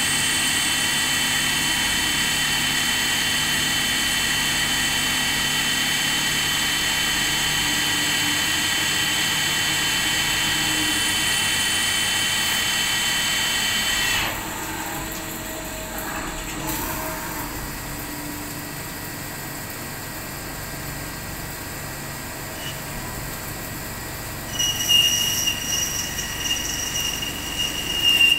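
Spinner TC77-SMCY CNC lathe running: a steady high whine made of several tones for about the first half, which cuts off sharply. The machine then runs quieter, and near the end a tool cutting the workpiece under coolant gives an irregular high squeal.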